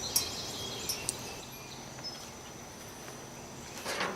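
Steady high-pitched insect trill, with a few light clicks in the first second and a short rustle near the end.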